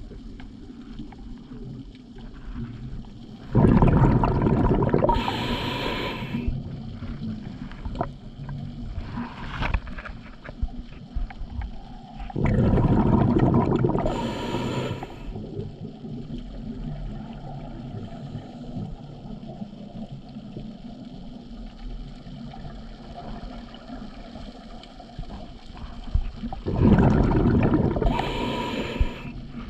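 A scuba diver breathing through a regulator underwater, slowly and evenly. There are three loud rushes of exhaled bubbles, each lasting two to three seconds, spaced roughly ten seconds apart, with a softer background between them.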